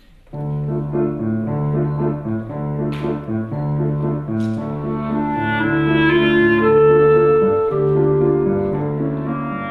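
Clarinet and Shigeru Kawai grand piano playing a duet. The piano repeats a steady low accompaniment pattern under the clarinet's melody, which moves into long held notes in the second half.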